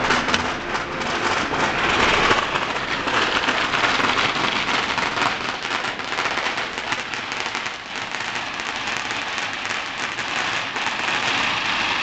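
Strings of firecrackers going off non-stop: a dense, rapid crackle of many small bangs blurring together. It eases off slightly past the middle and builds again near the end.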